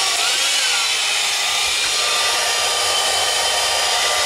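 1500-watt electric heat gun running on its low setting, a steady, even blowing hiss of its fan and hot air.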